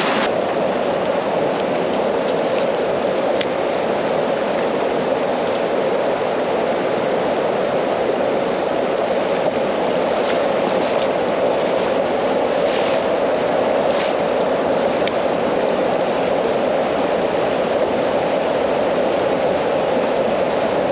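Creek water rushing steadily over rocks, with a few faint ticks in the middle.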